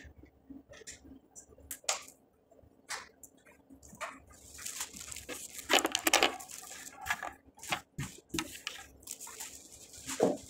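Scattered clicks and light knocks from the parts of a tiered clothes drying rack being handled. About halfway through, rustling close to the microphone joins in, with a few louder knocks.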